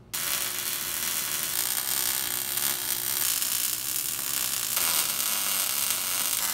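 Electric welding arc sizzling steadily as a bead is laid along a steel gusset seam on an axle. It strikes suddenly just after the start and keeps going without a break.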